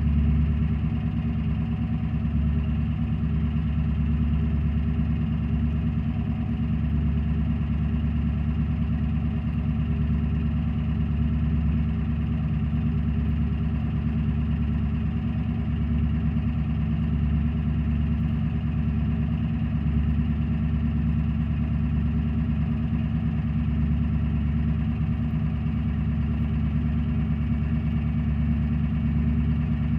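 Ford E-350's 7.3 L Power Stroke V8 turbo-diesel, fitted with a Holset HX50 turbo and dual 5-inch exhaust, idling steadily with no revving, still warming up after a cold start.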